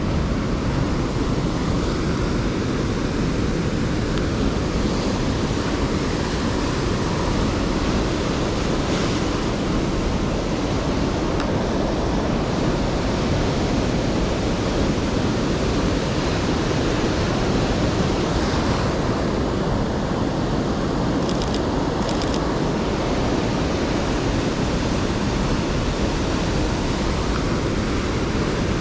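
Big ocean surf from a 6–8 ft swell breaking and washing over a boulder shoreline, a steady continuous roar of whitewater.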